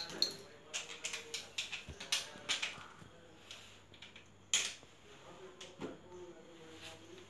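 Light plastic clicks and taps of water-purifier parts being handled and set down, scattered irregularly, with one louder knock about four and a half seconds in.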